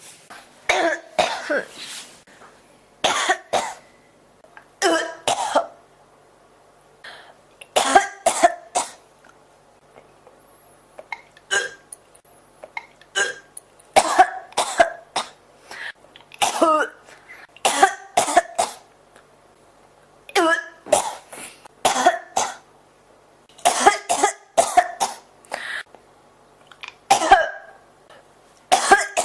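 Repeated coughing: short harsh coughs in clusters of two to four, one bout after another every second or two, a persistent coughing fit.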